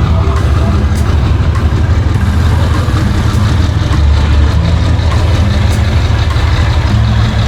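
Sea wind buffeting the camera microphone: a loud, steady, gusty low rumble.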